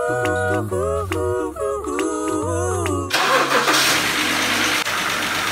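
Background music for about three seconds, then the BMW E90 325xi's N52 inline-six engine cuts in suddenly as it starts and runs steadily, just after reassembly of its timing and camshaft repair.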